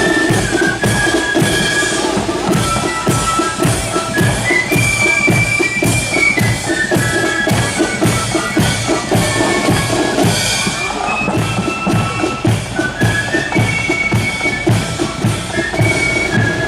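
Marching flute band playing: a high flute melody over bass drum and snare drums beating a steady march, about two strokes a second.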